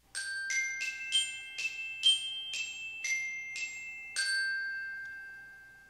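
Short intro jingle of bright, bell-like struck notes, like a glockenspiel, about ten notes at roughly two a second. The last note rings on and slowly fades away.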